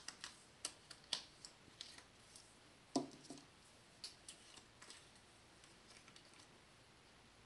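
Faint, scattered clicks and small taps of a plastic glitter vial being handled, with one soft thump about three seconds in.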